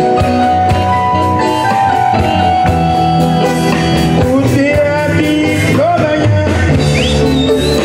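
Live band playing a morna, with electric guitar among the instruments and melodic lines that slide in pitch from about halfway through.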